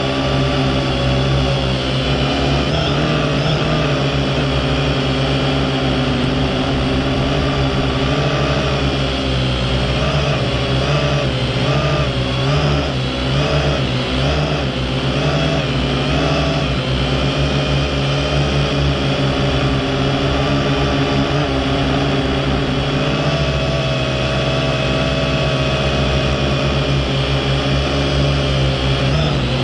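Quadcopter drone's electric motors and propellers whining steadily, heard close up from its onboard camera; the pitch wavers up and down for several seconds in the middle.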